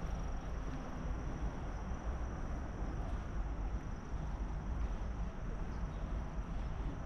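Insects, crickets by their sound, trilling steadily at one high pitch over a low, steady rumble.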